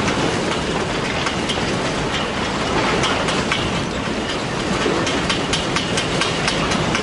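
The 2011 Tōhoku earthquake's strong ground shaking: a loud, continuous rumbling din with many sharp rattling clicks.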